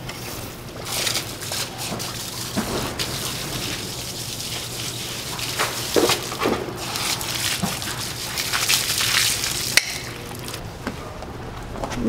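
Water hissing from a garden hose onto hay nets, soaking the hay, with a few knocks and rustles of handling and a steady low hum underneath.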